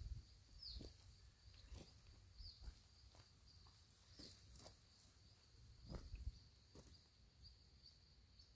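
Near silence: faint outdoor ambience with a short, high, falling chirp from a small animal, repeated every two seconds or so, and a few soft knocks, the clearest about six seconds in.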